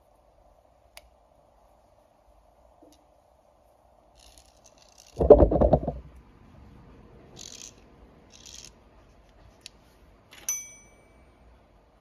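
Hands handling a small metal camera head and turning its knurled metal ring: a loud rubbing fumble about five seconds in, a few short scrapes as the parts move, and a bright metallic clink near the end.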